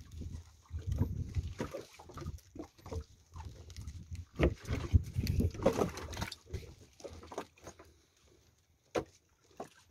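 Irregular knocks and rustles from handling a plastic handline spool and fishing line aboard a small boat, with a low rumble under them. It grows busier in the middle, then dies down, and one sharp knock comes near the end.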